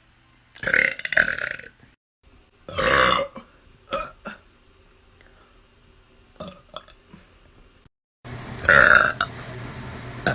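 A person letting out a series of deep burps: a long one about a second in, another around three seconds, a short one near four seconds, and the loudest near the end.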